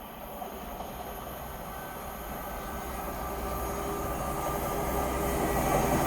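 CrossCountry Voyager diesel multiple unit approaching, its engine hum and running noise growing steadily louder.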